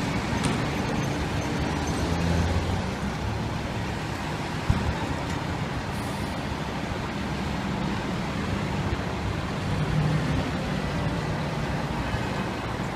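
Diesel engine of an FDNY fire engine running as the rig moves slowly, with city street traffic around it. A single sharp knock about four and a half seconds in.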